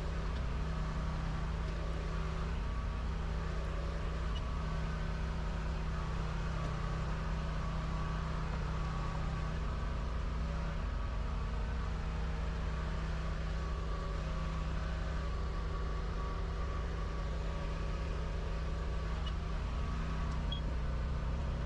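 Steady low machine hum carrying a few faint steady tones, unchanging in level.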